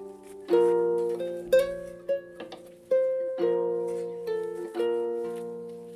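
Background music on Celtic harp: plucked notes and chords, each starting sharply and ringing on as it fades.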